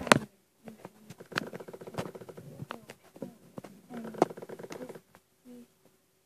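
Scattered sharp clicks and taps, with a few short, low murmurs of a voice in between.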